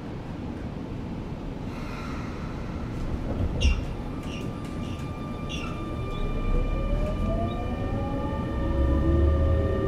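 Sotetsu 8000 series electric train with a Hitachi IGBT-VVVF inverter starting away: a thud and a few short clicks about four seconds in, then from about six seconds the inverter whine rises steadily in pitch, with motor rumble building as the train gathers speed.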